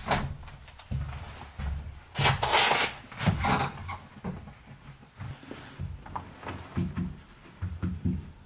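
A sliding glass patio door being handled and stepped through: scrapes, knocks and rattles of the door with heavy boot steps. The loudest is a longer scrape about two seconds in.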